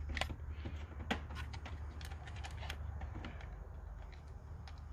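Scattered small clicks and taps as a coolant bleeder plug is threaded back into a 5.7 Hemi's water pump by hand, over a steady low hum.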